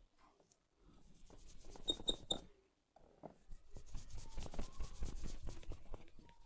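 Hands rubbing and working oiled hair and scalp in a head massage, a scratchy friction sound. Three sharp clicks come about two seconds in, and after a short pause a faster, denser run of rubbing strokes follows.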